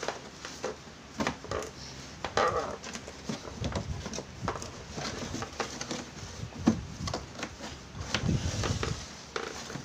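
Hard plastic tool case being handled: a string of clicks, taps and knocks as its latches are snapped shut, with heavier thumps as the case is shifted and turned over on a tile floor.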